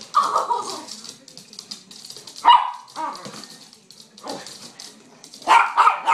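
Chihuahua puppy barking in short, sharp yaps: a longer burst at the start, a few single barks, then a quick run of three near the end.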